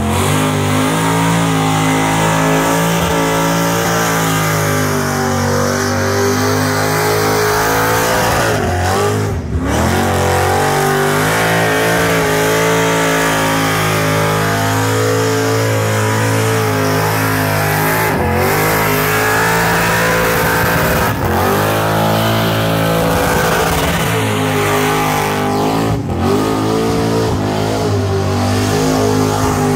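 Burnout car's engine held at high revs with its tyres spinning on the pad. The revs drop and climb back again about four times.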